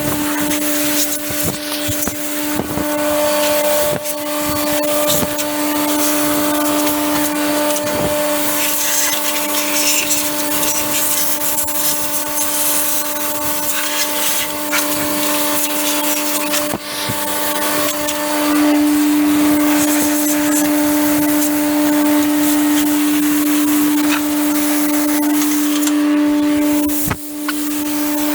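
Compressed-air blow gun hissing in repeated blasts as it blows dust and chaff out of a baler's knotters, over the steady hum of a Hydrovane rotary-vane air compressor. The hiss swells and briefly cuts off several times as the trigger is let go.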